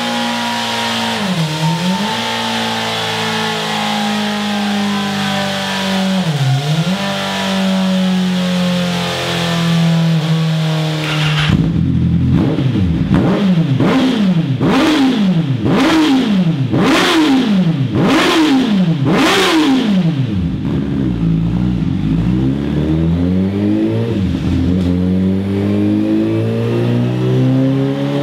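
Honda CBR1000RR inline-four engine held at steady revs through the stock exhaust, with two brief dips in pitch. About eleven seconds in it switches to the bike with a Scorpion Serket Taper exhaust: about seven quick rev blips in a row, then slower, gentler revs nearer idle.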